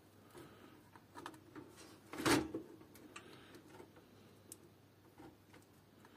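Faint clicks and rustling of a plastic zip tie being pushed and worked through a motherboard's CPU cooler mounting hole, with one sharper click about two seconds in.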